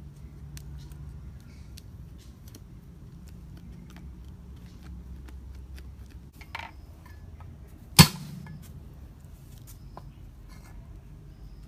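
Light scattered clicks and taps over a low steady rumble, with one sharp knock about eight seconds in, the loudest sound, ringing briefly.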